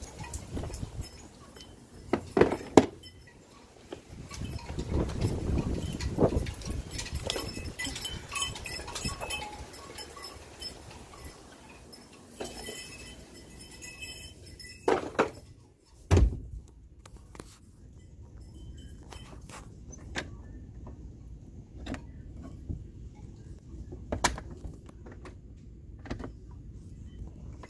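Wind gusting over the microphone with rumbling buffets, broken by a few sharp knocks and handling thumps. The wind noise drops away about sixteen seconds in, leaving quieter scattered clicks.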